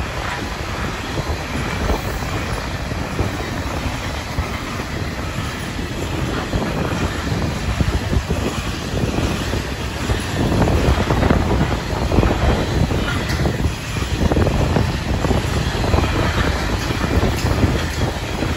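Steel-wheeled grain hopper wagons of a freight train rolling past close by: a steady rushing noise of wheels on rail, with a constant stream of clicks and knocks as the wheels pass over the rail joints.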